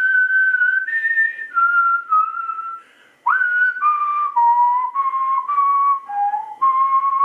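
A man whistling a slow tune through his lips. The breathy notes are held and step mostly downward in pitch, with a short break about three seconds in.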